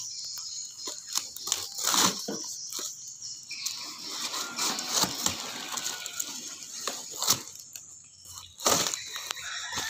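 Knife cutting through a cardboard box, with irregular scraping, tearing and crackling of the cardboard as it is sliced and pulled apart.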